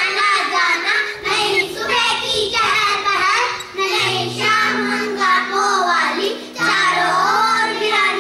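Young children singing a poem together, with backing music holding steady low notes underneath.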